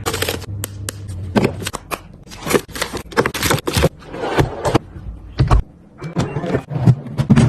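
Quick, irregular clicks, taps and clatter of food containers and packaging being handled and set down while a fridge is restocked.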